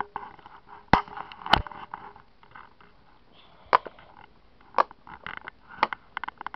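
Silicone Pop-It fidget toy's bubbles being pressed in by a finger: a series of short, sharp pops at irregular intervals, the two loudest close together about a second in and several more near the end.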